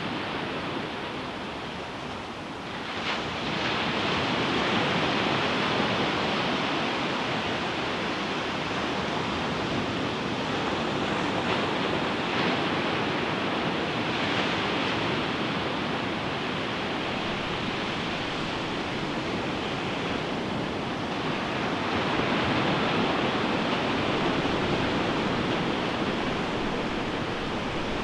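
Ocean surf breaking and washing onto a beach: a steady rushing wash that swells as a wave comes in, about three seconds in and again about twenty-two seconds in.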